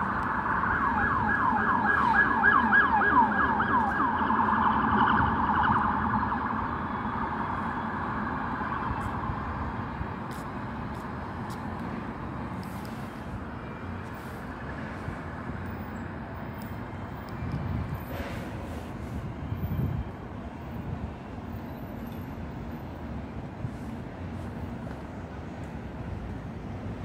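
Emergency vehicle siren in a fast yelp, sweeping up and down several times a second. It is loudest in the first few seconds and fades away by about ten seconds in. Steady street traffic noise remains after it.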